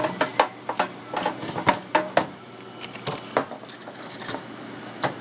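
Rapid plastic clicks and knocks as hands work a PVC pipe fitting against a plastic tank wall, coming thick and fast for the first two seconds, then thinning out to a few separate knocks.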